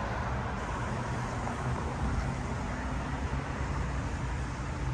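Steady low hum of motor vehicles with an even background of road noise; nothing starts or stops.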